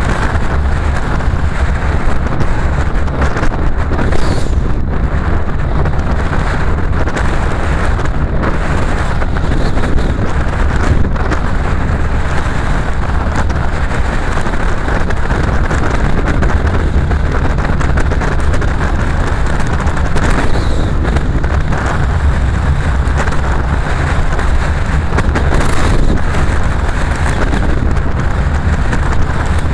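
Car driving at speed: steady engine, tyre and wind noise with a strong low rumble.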